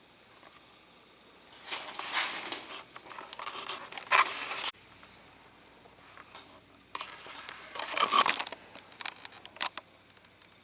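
Two spells of rustling and sharp little clicks from parts being handled during engine assembly, each a few seconds long; the first cuts off suddenly.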